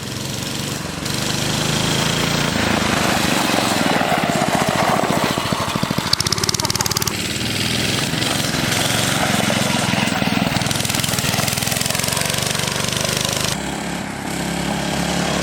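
Small single-cylinder Briggs & Stratton engine on a mini bike running steadily under throttle as the bike is ridden, its rapid firing pulses steady throughout.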